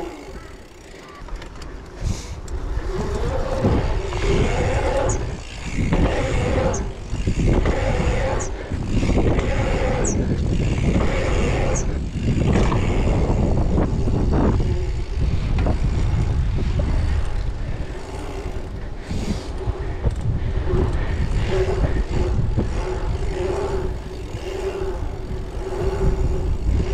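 Dirt jump bike riding fast over an asphalt pump track: tyres rolling and rushing wind on the camera microphone, swelling and easing repeatedly. A faint steady hum and a few light ticks sit under the noise.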